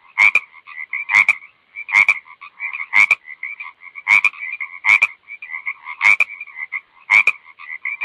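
Frogs croaking: a loud, sharp croak about once a second, with quieter rapid notes between.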